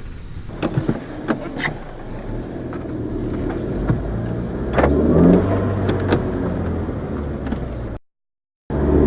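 Honda Civic's 1.5-litre turbocharged four-cylinder (L15B7) drawing through a cold air intake, accelerating, heard from inside the car, with a few sharp clicks in the first two seconds. The engine note rises in pitch about five seconds in. The sound cuts out briefly near the end, then returns with the engine revving up again.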